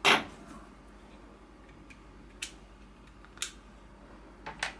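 Sharp metallic clicks and taps of a small punch and pins against a Glock pistol's frame as its pins are pushed out: one loud click at the start, then a handful of fainter ones spread through the rest.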